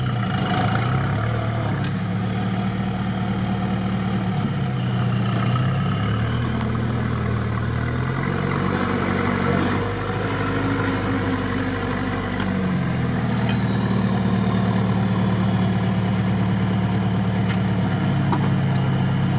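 ZIL-131's V8 petrol engine heard from inside the cab, its revs dropping and rising several times as the truck works in swamp mud where it is stuck.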